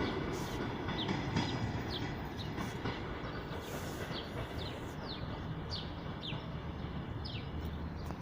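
Passenger train cars rolling along the track with a steady rumble that slowly fades. Birds chirp over it in short, falling notes.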